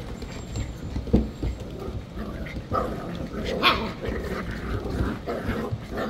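Dachshund puppies play-fighting: small growls and short barks over scuffling, with a sharp knock about a second in.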